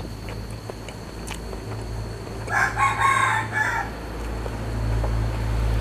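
A rooster crowing once, a single call of a little over a second about halfway through, over a low steady hum.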